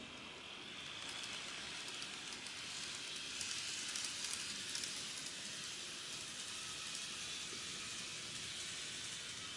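N-gauge model of a Keihan 1000-series train running on model track as it pulls away from the station: a steady whirring hiss that builds over the first second, with faint scattered clicks from the wheels on the rails.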